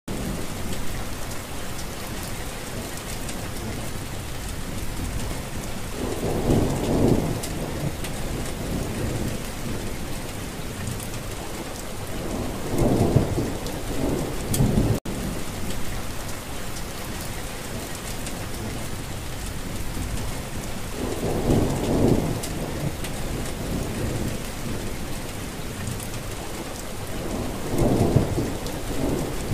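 Steady rain falling, with four low rolls of thunder spaced several seconds apart. The sound cuts out for an instant about halfway through.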